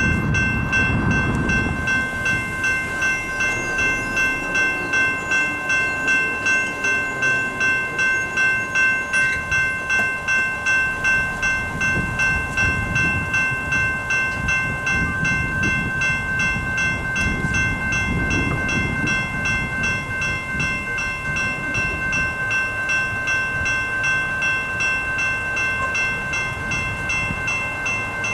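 General Signals Type 2 electronic railroad crossing bell ringing as the crossing signals activate, a steady repeated ding over a low rumble.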